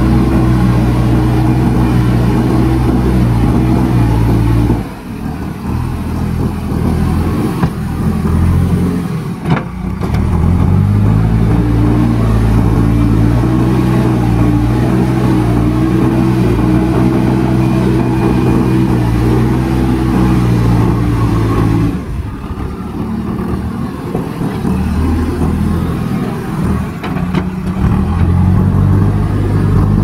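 JCB backhoe loader's diesel engine working under load as the front loader bucket pushes loose soil and rocks. The revs fall away twice, about five seconds in and again past the two-thirds mark, and climb back up each time. There is one sharp knock near ten seconds in.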